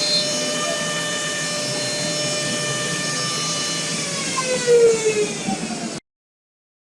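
A high-speed machining spindle running with a steady whine over a noisy haze; about four seconds in its pitch starts to fall as it spins down, and the sound cuts off suddenly about six seconds in.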